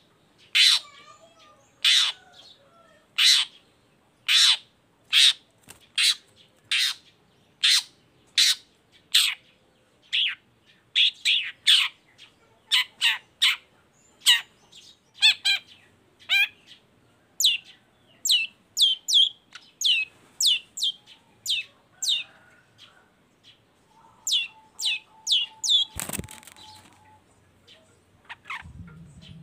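Long-tailed shrike (cendet) calling over and over: short, sharp notes that sweep downward, about one a second at first, then faster and in clusters of two or three from about ten seconds in. A single knock near the end.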